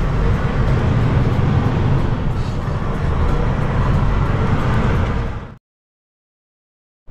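Lorry engine and road noise heard inside the cab while driving, steady; it fades out about five and a half seconds in, leaving dead silence.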